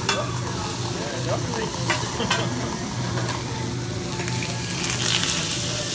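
Vegetables sizzling on a hot flat steel teppanyaki griddle, a steady hiss, with a few sharp clicks of a spatula on the steel.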